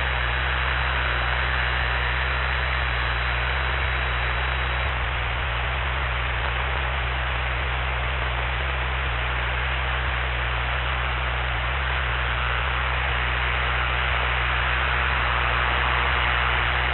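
Steady hiss of a headset intercom recording, with the even low drone of the Cessna 172's engine and propeller running steadily underneath.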